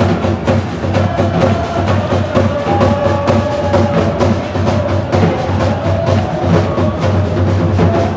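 Music led by drums, a fast steady beat of several strokes a second, with a held, wavering melody above it.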